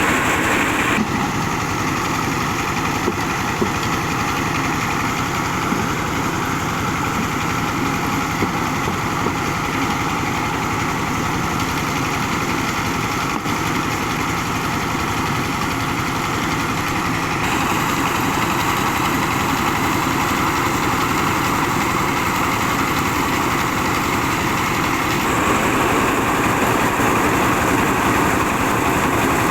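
Old car engine running steadily while driving a rice milling machine; the sound shifts abruptly about a second in, again past the middle, and near the end.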